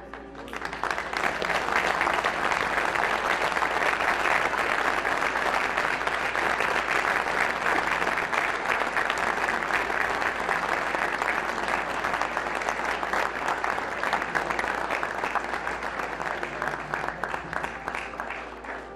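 A large audience applauding. The clapping swells up in the first second or two, holds steady, and tapers off near the end.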